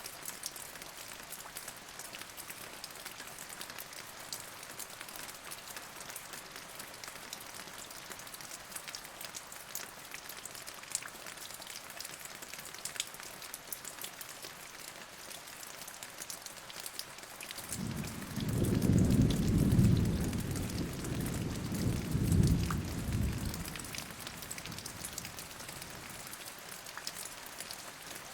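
Steady rain falling, with scattered ticks of individual drops. About eighteen seconds in a low rumble of thunder rolls in, swells twice and fades away over roughly six seconds.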